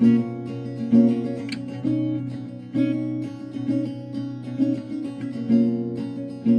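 Acoustic guitar strumming chords in a steady rhythm, with an accented strum about once a second and no singing: the instrumental close of an acoustic band song.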